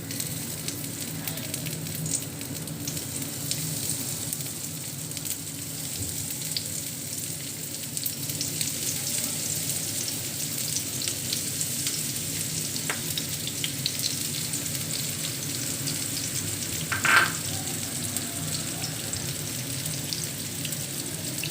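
Breadcrumb-coated prawns frying in hot soybean oil in a frying pan: a steady sizzle with fine crackles, and one brief louder sound about three-quarters of the way through.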